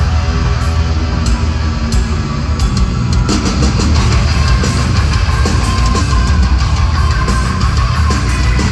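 Live heavy metal band playing loud, with distorted electric guitars, bass and drums, heard from the crowd.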